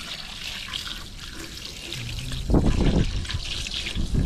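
Water running from an outdoor garden tap and splashing over a butterflied fish as it is rinsed by hand to wash out the blood. A louder low rumble comes about two and a half seconds in and again near the end.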